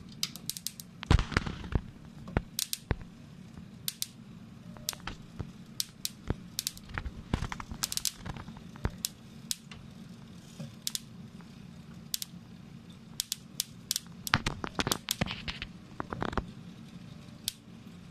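Irregular sharp crackles and snaps from a wire-fed metal 3D printer melting its metal wire into a glowing orange blob on the build plate. The crackles come in denser clusters about a second in and again near the end, over a steady low hum.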